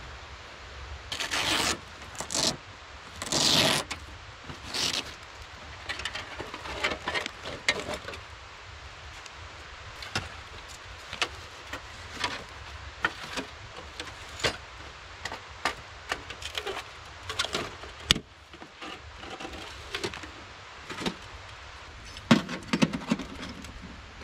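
Footsteps crunching in snow, then rustling and scraping as gear is handled and a small metal box stove is lifted out of a sled and set down on the snow, with light metallic clinks and knocks and one sharp metal click past the middle.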